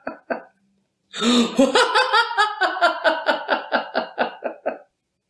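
A man's drawn-out mocking laugh, "ha-ha-ha" at about five pulses a second, voiced for the corona-virus villain of an animated cartoon. It breaks off just after the start and picks up again about a second in, running for nearly four seconds.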